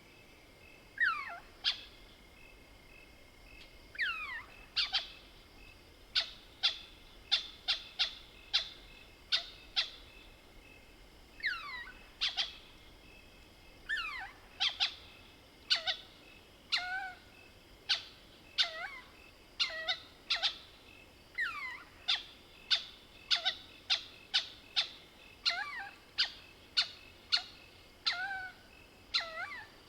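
Mohol's bushbaby (southern lesser galago) calling: a long series of short, sharp squeaking cries, about one to two a second, some groups opening with quick squeaks that slide steeply down in pitch.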